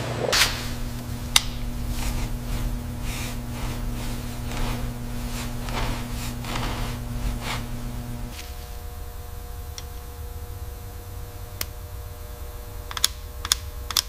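Agitated parts-cleaning tank: a steady electrical hum under churning, bubbling liquid that surges about twice a second, stopping suddenly about eight seconds in. A few light metallic clicks follow near the end.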